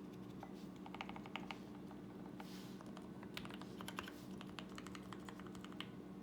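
Typing on a custom 65% mechanical keyboard with lubed Turquoise Tealio linear switches on an aluminium plate and PBT keycaps: quick runs of keystroke clacks in bursts, stopping shortly before the end.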